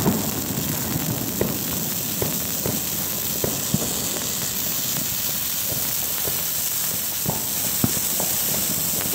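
A dry Christmas tree burning fast: a steady rushing hiss of flame with irregular sharp crackles and pops from the needles and branches.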